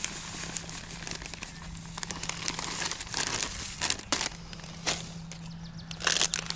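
Plastic groundbait bag crinkling and crackling in irregular bursts as it is shaken out over a bucket and squeezed empty.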